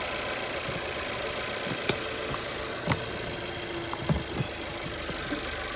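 Car engine idling steadily, with a few short light clicks over it.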